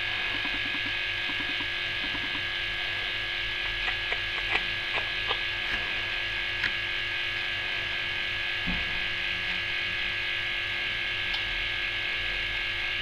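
Small Bambi air compressor running with a steady, fridge-like hum, with a few light ticks around the middle.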